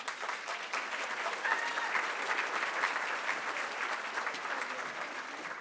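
Large audience applauding, the clapping starting at once and slowly dying down near the end.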